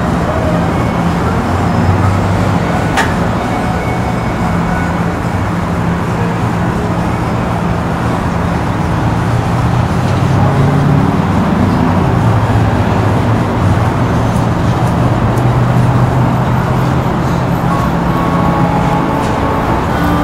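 Steady road-traffic noise with a motor vehicle engine running, its low hum swelling slightly partway through. A single sharp click sounds about three seconds in.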